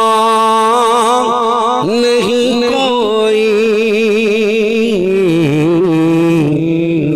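A man singing a hamd (Urdu devotional praise of God) without words: one long held note that breaks into wavering, ornamented runs about a second in, the melody stepping down in pitch toward the end.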